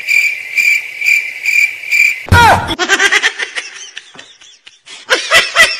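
Cricket chirping: a steady high pulsing note about three times a second. It breaks off a little after two seconds into a sudden loud sound, followed by scattered short sounds.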